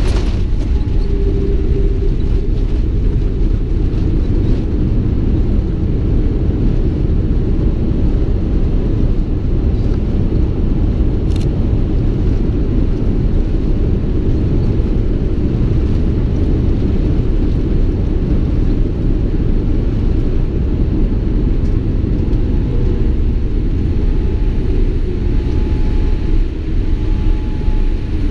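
Steady, loud low rumble of a Boeing 787 airliner rolling down the runway after landing, heard from inside the cabin: engine, airflow and runway noise with the wing spoilers raised.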